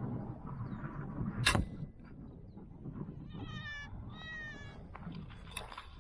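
Two short, pitched animal calls, one right after the other, each falling slightly in pitch, heard over low thumps of movement and a sharp click about a second and a half in.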